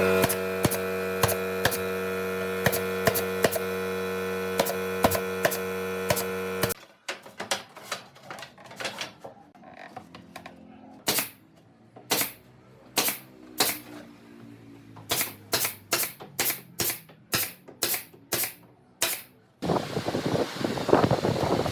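Workshop tool sounds. First a power tool motor runs steadily with clicks on top and stops suddenly; then come many separate sharp knocks at uneven spacing; near the end a tool starts up with a dense, rough noise.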